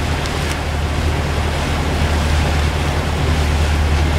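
Steady wind rumbling on the microphone over a continuous rush of water, heard from the deck of a sailing ship under way.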